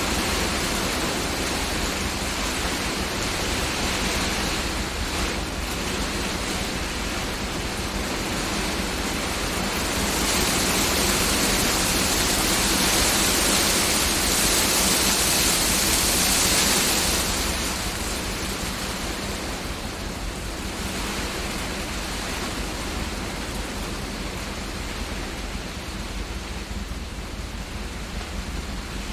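Heavy rain with wind and hail: a dense, steady hiss that swells louder and brighter about a third of the way in for several seconds, then eases back.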